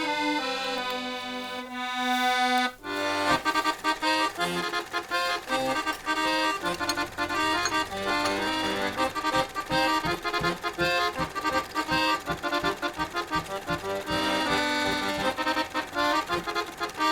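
Accordion music: a few slow held notes, then from about three seconds in a lively tune over a steady bouncing beat.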